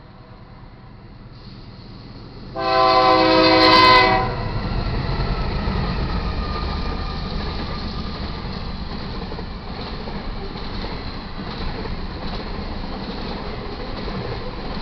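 Diesel locomotive horn of a BNSF GE C44-9W: a faint chord that stops about a second in, then a loud multi-note blast from about two and a half to four seconds in. Straight after, the steady rumble and rail noise of the double-stack intermodal train passing close by, easing slightly toward the end.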